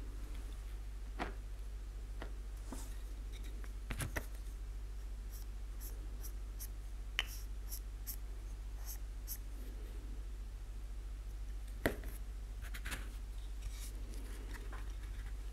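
Close handling sounds of painting a small 3D-printed badge with a fine brush: scattered light taps and clicks with faint scratchy brush strokes, over a steady low hum.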